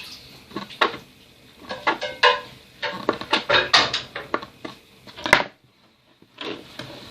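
Kitchen clatter: a knife knocking against a cutting board and dishes clinking, in irregular sharp strikes, some with a short ring. The sounds break off for about a second near the end.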